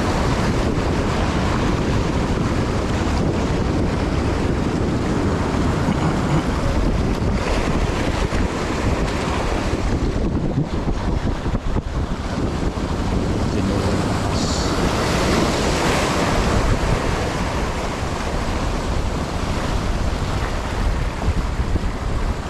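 Strong wind buffeting the microphone over the wash of sea waves on a rocky shore, a steady, heavy rush with a deep rumble.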